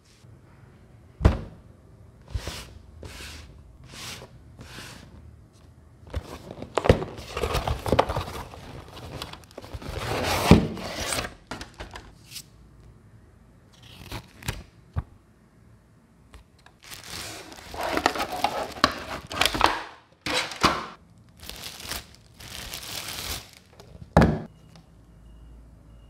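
Cardboard and plastic packaging being handled while a small humidifier is unboxed: paper and plastic crinkling and rustling in several stretches, with scattered sharp knocks and thunks as pieces are set down.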